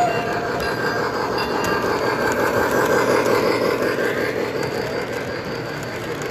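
O-gauge model freight cars rolling past on three-rail track, a steady rumble and rattle of wheels that swells as the cars pass closest and then eases off. A whistle tone fades out under a second in.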